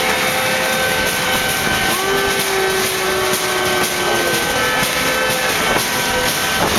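Noise of a protest crowd, with several long, steady blown tones held over it at different pitches, some sliding slightly.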